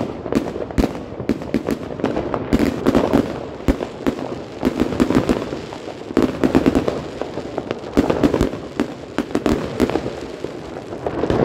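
Fireworks rockets and aerial shells bursting overhead: a dense run of irregular bangs and crackles, several a second and often overlapping, over a continuous rumble of more distant fireworks.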